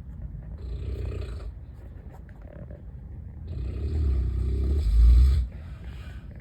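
A man snoring loudly in his sleep: a rasping snore about a second in, then a longer, louder one that builds and peaks near the five-second mark before breaking off into a softer breath.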